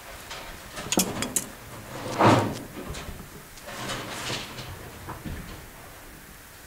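Stiff bark strips scraping and creaking as they are bent and woven by hand, in several short scrapes, the loudest about two seconds in. A couple of sharp clicks about a second in.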